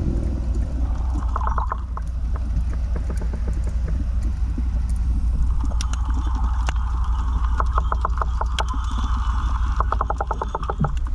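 Underwater sound from a submerged action camera: a steady low rumble of moving water, with a few short runs of rapid clicking, most of them in the second half.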